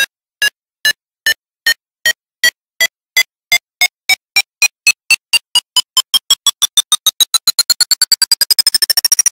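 Synthesizer intro sting: a string of short electronic beeps that speed up and rise in pitch until they blur into one continuous rising tone near the end.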